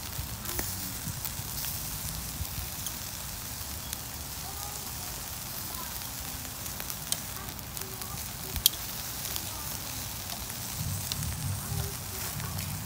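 Chicken drumsticks and corn sizzling on a barbecue grill: a steady hiss with scattered crackling pops, two sharp pops about two-thirds of the way through standing out.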